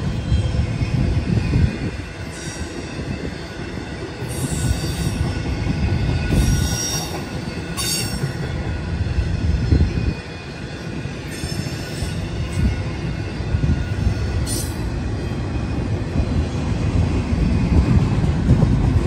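Double-stack intermodal freight train rolling past with a steady low rumble of wheels on rail. Short high-pitched metallic squeals from the wheels break in several times over the first fifteen seconds.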